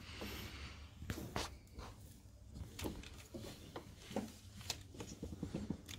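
Faint scattered clicks and rustling of a hand working among the hoses in a car's engine bay, fitting the oil-feed T-piece at the oil pressure switch.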